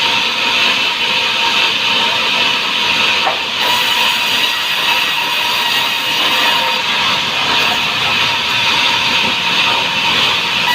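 Sawmill saw blade running through a log, a loud steady hissing whine with a constant high tone.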